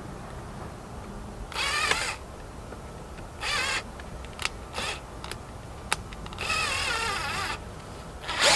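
Power drill driving screws into pallet wood, in three short runs, the last about a second long, its motor whine wavering in pitch under load. A few sharp clicks fall between the runs.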